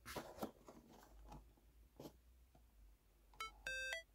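Faint handling noises of a cardboard toy-car box being picked up: a few soft clicks and rustles, then scattered small ticks. About three and a half seconds in, electronic background music starts with short beeping synth notes.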